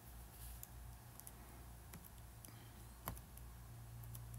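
Faint room tone with a steady low hum, broken about three seconds in by a single sharp click of a laptop key or button as the slide is advanced.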